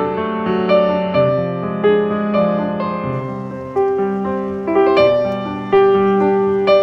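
Background piano music, a gentle melody of struck notes that ring and fade, with a new note or chord about every half second.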